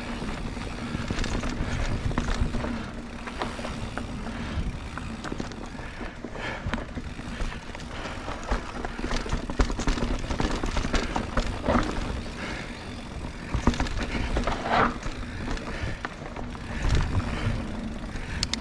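Mountain bike ridden over rough singletrack: tyre rumble with rattling and sharp knocks as the bike rolls over roots and rocks, over a steady low hum.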